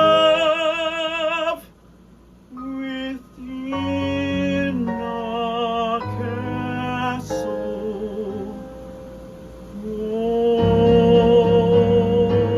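Musical-theatre song sung solo over accompaniment. A held sung note with vibrato breaks off about a second and a half in. After a brief pause, more phrases follow, and a long sustained note over fuller accompaniment begins about ten seconds in.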